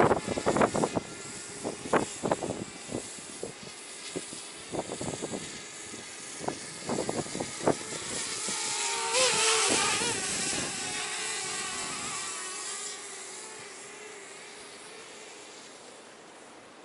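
Wind gusts buffeting the microphone, then the small racing drone's electric motors and propellers whining, a wavering pitch that comes up loud about nine seconds in and slowly fades to a faint steady hum.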